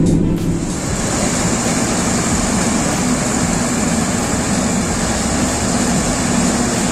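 Claas Medion 340 combine harvester running steadily while its auger unloads shelled corn, an even mechanical rush with a thin high whine over it. The sound shifts about half a second in, from a stronger low hum to the steadier rush.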